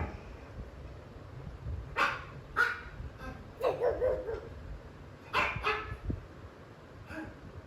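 A dog barking in short bursts: two sharp barks about two seconds in, a longer wavering bark near four seconds, and another pair of barks a little past five seconds.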